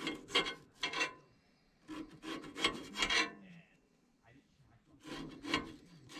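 Knife sawing through raw red potatoes and scraping against the board beneath, in short runs of strokes with pauses between.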